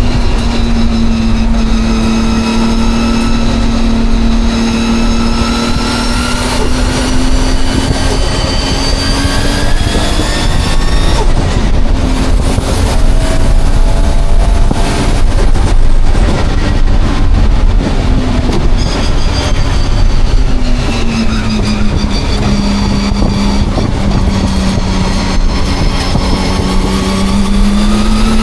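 Nissan Skyline's engine running hard on a race track, its pitch sagging and climbing as the car slows for corners and accelerates out, with a break about a third of the way through and a higher-pitched stretch after it. The uploader calls the car misfiring.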